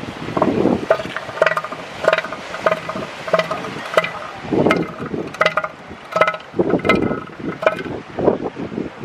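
Bull northern elephant seal giving his threat call: a rhythmic series of knocking pulses, about one and a half a second, made with head raised and mouth open to intimidate another seal. Surf and wind run under it.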